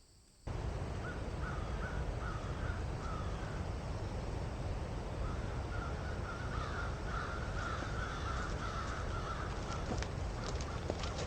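Rapid series of short, harsh animal calls, once briefly and then again for several seconds, over a steady low outdoor rumble.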